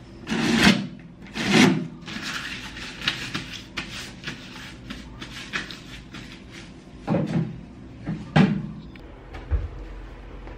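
Knocks and clatter of things being handled and set down on a bathroom counter. There are two loud knocks in the first two seconds, lighter taps and rattles through the middle, and two more knocks around seven and eight seconds in.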